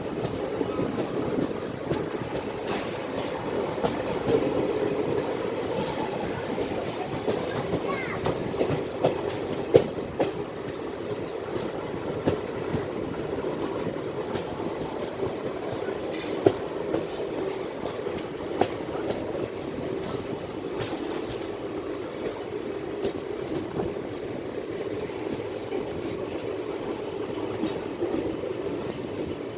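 Passenger train rolling on the track: a steady rumble with the clickety-clack of steel wheels over rail joints and scattered sharp clacks, the loudest about ten seconds in and again past the middle.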